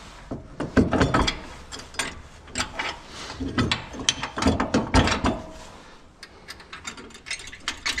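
Irregular metal clicks and clanks of pins and hitch hardware being handled and worked into place by hand. The clicks are densest over the first five seconds, ease off, then start again near the end.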